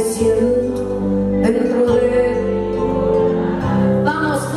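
A woman singing a worship song into a microphone, her voice amplified over instrumental accompaniment with held chords and a steady bass.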